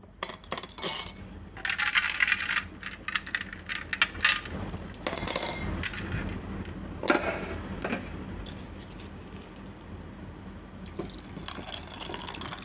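Dishes and utensils clinking and clattering as they are handled, in scattered short bursts with sharp clicks, heaviest in the first seven seconds.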